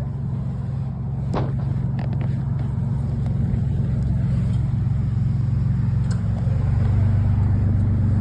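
A car engine idling with a steady low hum that grows a little louder about seven seconds in. A couple of short knocks come early, from the phone being handled.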